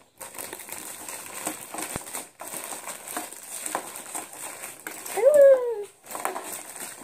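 A clear plastic packaging bag rustling and crinkling as it is handled and opened. About five seconds in comes a single short vocal sound that falls in pitch.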